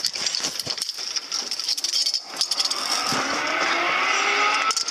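Zipline trolley pulleys running along the steel cable: rattling and clicking at first, then a steady whine that slowly rises in pitch as the rider picks up speed.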